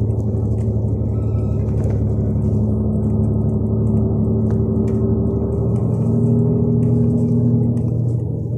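MAN Lion's Regio coach's 360 hp MAN diesel engine running under way, heard from on board as a steady drone. Its pitch rises slowly and steps up a little about six seconds in, and the sound eases off slightly near the end.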